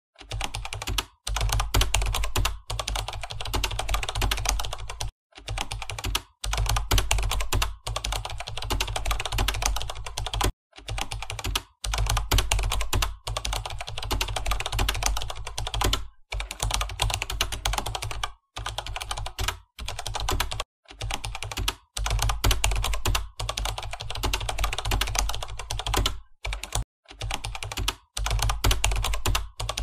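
Fast, steady typing on a laptop keyboard, keys struck with long acrylic fingernails, broken several times by short silent pauses.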